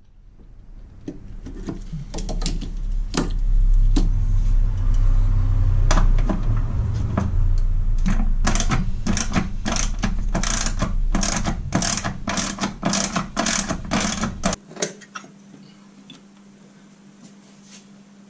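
Hand ratchet working a bolt out of an engine-bay bracket: scattered clicks, then a steady run of sharp ratcheting clicks at about three a second. Under it runs a low rumble that cuts off suddenly near the end, leaving a faint hum.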